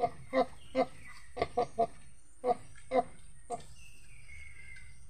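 Nursing sow grunting in a quick series of short, evenly paced grunts, about two or three a second, stopping about three and a half seconds in. This is the rhythmic grunting a sow makes while her piglets suckle.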